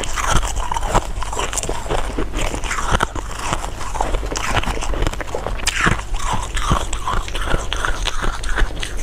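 Close-miked eating sounds of a person biting and chewing candy and jelly sweets, with a steady run of small irregular crunches and clicks.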